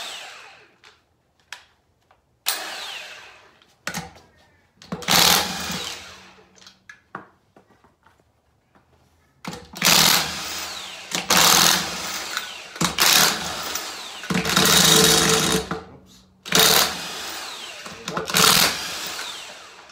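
Impact wrench spinning off the six lug nuts of a rear wheel, in short bursts of one to two seconds with pauses between. A few bursts come in the first half and a quick run of them in the second.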